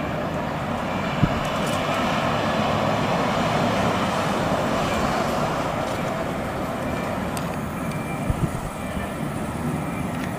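Boeing 767-200 jet engines heard from a distance during the landing roll-out: a steady rushing noise that swells about three to four seconds in and then slowly eases. Two brief knocks, about a second in and about eight seconds in.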